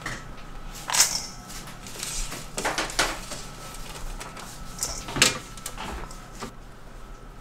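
Kitchen work sounds from food preparation: a handful of sharp knocks and clatters, the loudest about a second in and about five seconds in, over a faint steady high hum.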